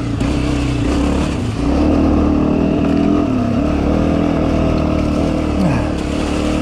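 Dirt bike engine running steadily under way on a rough forest trail, its pitch dipping briefly about halfway through as the revs drop, then picking back up.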